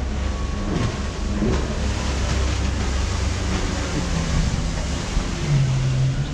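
Steady low rumble and wash of wind and sea, with the engine of a jet ski running on the water below; a steadier low drone comes in near the end.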